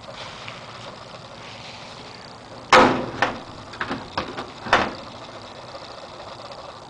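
A heavy steel door shutting with a loud thump almost three seconds in, followed by a few lighter knocks and clicks and a second thump about two seconds later.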